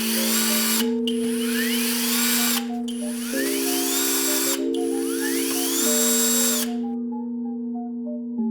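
Electronic background music: held synth chords that shift every second or so, overlaid with a repeating whooshing noise swell and rising sweep that stops about two-thirds of the way through.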